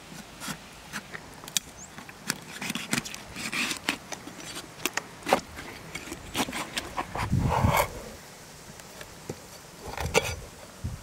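Cleaver cutting up a catfish on a wooden cutting board: a run of irregular clicks, taps and scrapes as the blade works through skin and bone and knocks against the board, with one heavier, louder stroke about seven and a half seconds in.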